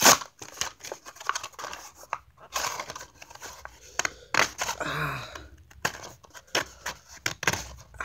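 Plastic blister and cardboard backing card of a Matchbox toy-car package being pried and torn open by hand: irregular crackling, crinkling and tearing as the package resists opening. A brief vocal sound about five seconds in.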